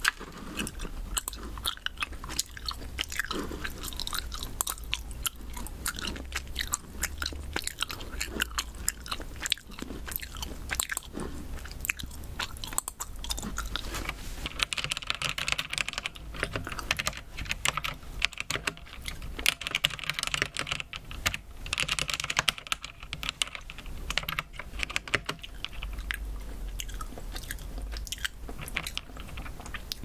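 Close-up chewing of Haribo mini gummy bears, wet and squishy, mixed with the clicking of mechanical keyboard keys on brown switches.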